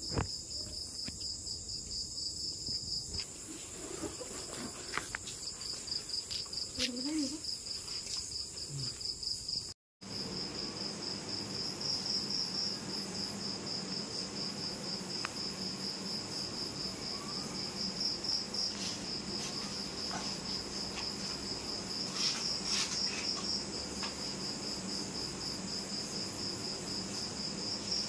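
Crickets chirping in a steady, fast pulsing trill. The sound cuts out for a moment about ten seconds in, then carries on, with a few faint taps later.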